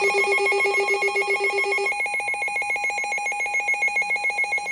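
Electronic emergency alert tone: a loud, fast-trilling, ringer-like pulsed tone. A lower note in it drops out about two seconds in.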